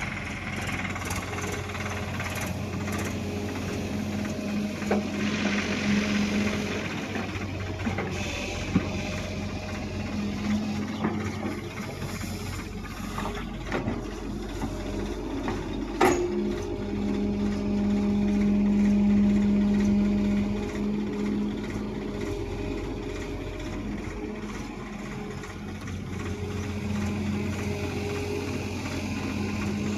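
Diesel engine of an XCMG crawler excavator running steadily as it digs soil and swings a loaded bucket, louder for a few seconds just after the halfway point. A single sharp knock about halfway through.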